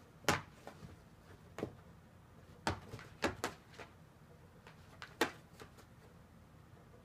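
Cats playing in cardboard soda boxes: irregular thumps and scuffling knocks against the cardboard, about six sharper ones among fainter taps.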